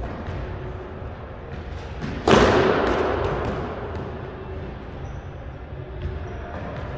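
Squash ball and racket impacts in an enclosed court. There are a few light taps, then a little over two seconds in one loud bang that rings around the court and fades over more than a second, followed by several lighter taps of the ball.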